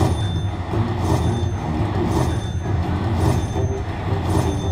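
Slot machine's bonus-round sound effects: a steady low rumbling loop with a rushing swell about once a second.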